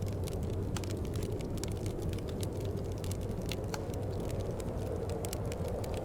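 Wood fire crackling in a fireplace, with irregular sharp snaps and pops over a steady low rush of wind.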